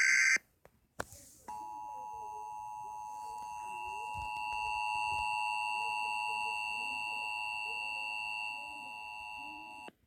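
The last fraction of a second of an EAS SAME digital header burst, then a click. After that comes the Emergency Alert System two-tone attention signal (853 and 960 Hz sounded together), steady for about eight seconds before it cuts off sharply: the alert tone that opens a required monthly test.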